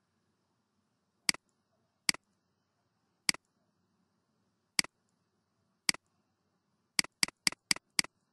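Computer mouse button clicks, each a sharp press and release: single clicks spaced about a second apart, then a quick run of five near the end.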